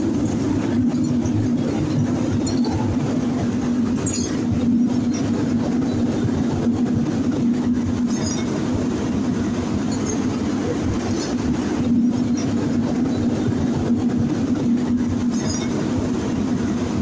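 Steady, loud industrial machinery drone with a constant low hum and a few faint clinks above it.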